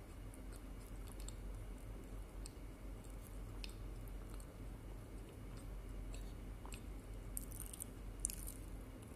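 Quiet chewing of a soft bánh đúc cake, with light clicks of a fork on a plate and a couple of sharper ticks near the end, over a faint steady low hum.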